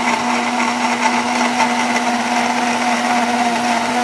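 Electric mixer-grinder (blender) running steadily at a constant speed, churning bael fruit pulp with water and ice cubes in its plastic jar.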